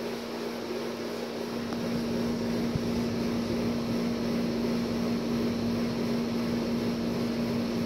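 Steady mechanical hum with a constant low tone running under it, growing slightly louder about two seconds in.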